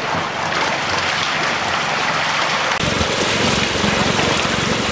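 Steady rush of water gushing out of a hatchery truck's tank outlet into the lake as trout are released, with a low steady hum beneath. The sound changes abruptly and grows fuller a little under three seconds in.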